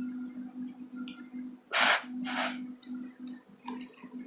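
A person's voice making the English /f/ phonics sound twice: two short, breathy, unvoiced hisses about half a second apart, over a steady low hum.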